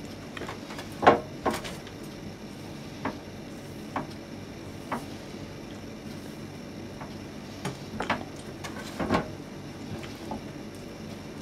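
A raw whole duck being handled and turned over in a roasting tray: scattered sharp knocks and clatters of the bird and tray, about nine in all, loudest about a second in and again near the end.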